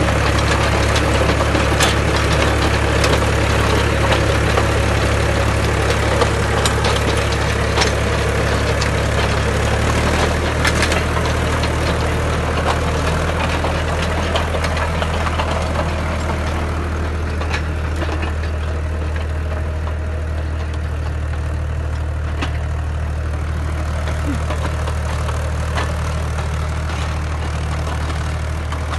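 Powertrac Euro 50 tractor's diesel engine running steadily under load, driving a power harrow that churns through stony soil with a gritty rattle and scattered sharp clicks. The engine's low note shifts slightly about ten seconds in, and the harrow's rattle fades somewhat in the second half.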